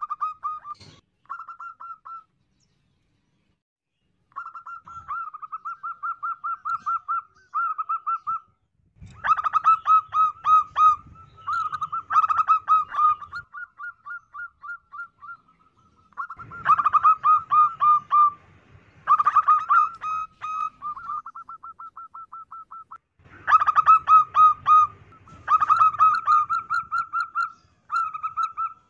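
Zebra dove calling: trains of rapid, short staccato coo notes repeated in bouts of a few seconds, with short pauses between bouts.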